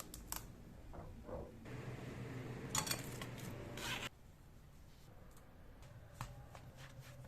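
Kitchen handling sounds: scattered light clicks and knocks, with a few seconds of rustling and scraping in the middle that peaks twice before stopping abruptly.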